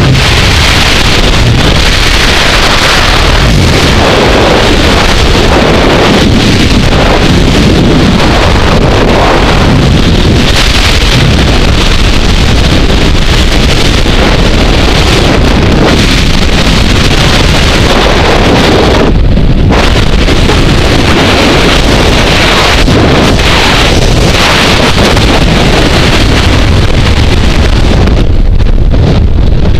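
Skydiving freefall wind rushing over the camera's microphone: a loud, steady roar of air noise, briefly muffled about two-thirds of the way through.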